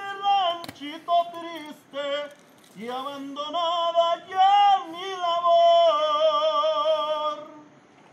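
A person singing in a high voice with no instruments heard: a few short phrases, then long held notes that swoop in pitch and waver, dying away near the end.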